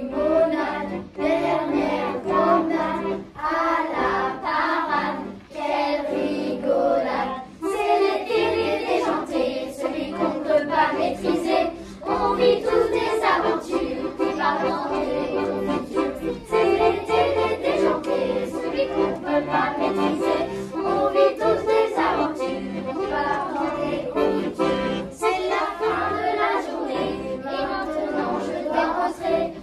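A children's choir singing a song together, with a sustained instrumental accompaniment holding steady chords underneath.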